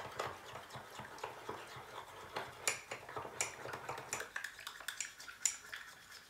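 Spoon stirring a thick sauce in a small ceramic ramekin: irregular light clinks and scrapes against the ramekin.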